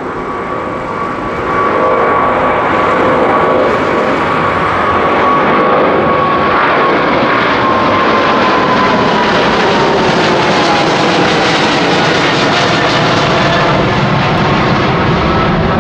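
Boeing 777-200ER's twin GE90 turbofans at takeoff climb thrust as the airliner passes low overhead. Loud jet engine noise builds over the first couple of seconds, then holds steady, with a whine that drops in pitch as the aircraft goes by.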